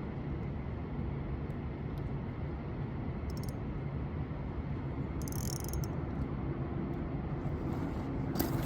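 Steady low rumble of a vehicle being driven, heard from inside: engine and road noise, with a faint engine hum that steadies about five seconds in, and a few light clicks.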